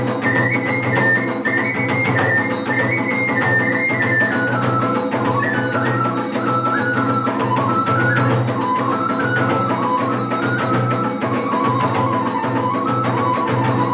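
Iwami kagura music: a high melody that steps and ornaments its way downward over a steady low accompaniment.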